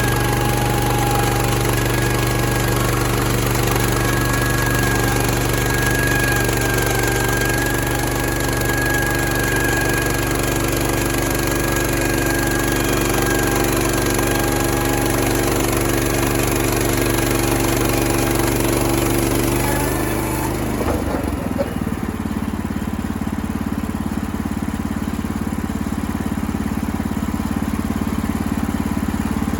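Engine running steadily with a constant pitch. About twenty seconds in, the higher-pitched noise dies away and the engine note drops, leaving a lower, steady engine sound.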